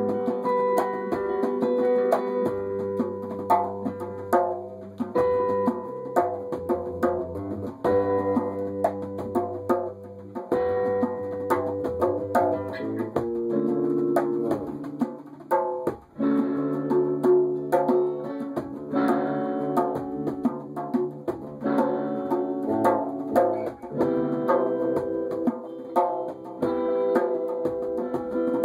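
Live jam of guitar playing over low, sustained bass notes, with frequent sharp percussive hits; the music dips briefly about halfway through.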